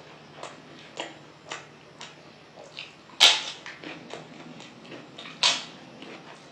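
Close-up eating sounds: wet chewing and lip smacks at about two a second, with two loud crisp crunches of fried papad, about three seconds in and again near the end.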